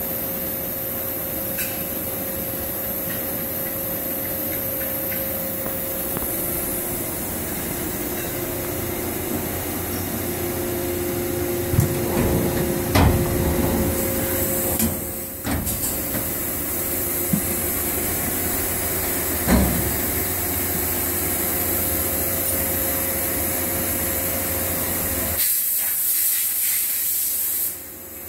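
Steady hum and hiss of running shop machinery, with a humming tone, broken by a few knocks and clunks around the middle as the enclosure doors of a horizontal machining center are handled and opened. The low hum drops away near the end, leaving mainly the hiss.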